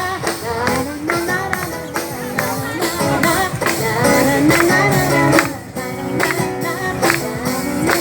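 Live music with a steady percussive beat, over which a voice makes swooping, squeaking glides up and down in pitch: a vocal imitation of a cuíca, the Brazilian friction drum.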